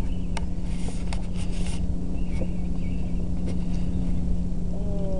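Steady low hum over rumbling outdoor background noise, with a few faint clicks.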